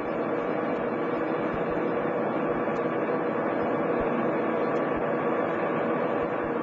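Lathe running steadily, a continuous even mechanical noise without breaks, as the tool is fed across the rotating work in a facing cut.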